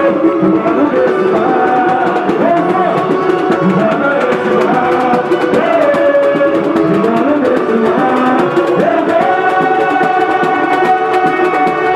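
Live samba-school music: voices singing a samba melody with cavaquinho over the steady drumming of the school's percussion section (bateria).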